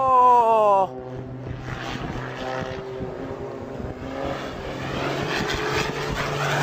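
Aircraft engine noise: a loud pitched engine tone falls in pitch during the first second, then gives way to a steadier engine drone and a rushing noise that slowly grows louder.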